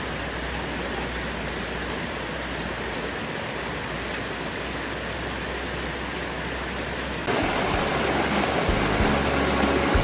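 Steady rush of water from a mountain waterfall and stream. About seven seconds in it gives way to louder background music.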